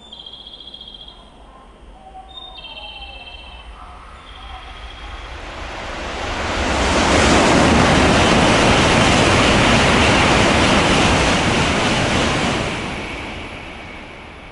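Shinkansen train passing through the station at full speed without stopping: a rushing noise that builds over several seconds, stays loud for about five seconds, then fades away. In the first few seconds, short high electronic tones sound twice.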